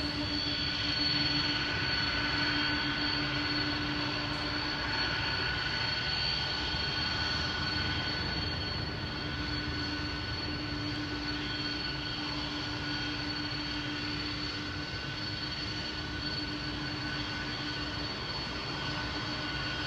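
Jet airliner engines running steadily, a continuous rush with a high steady whine held throughout.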